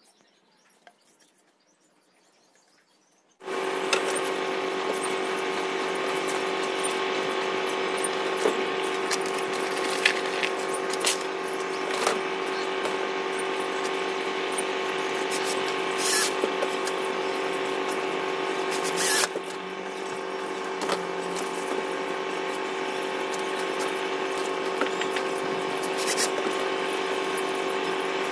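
Cordless drill starting up about three seconds in and then running at a steady, even whine, with occasional sharp clicks; the level drops slightly a little past the middle.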